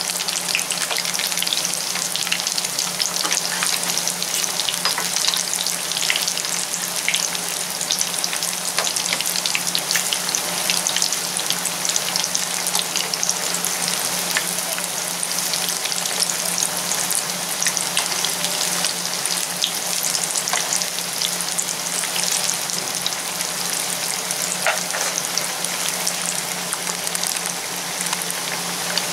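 Besan and potato pieces deep-frying in hot oil in a pan: a steady, dense sizzle full of fine crackles. A low steady hum runs underneath.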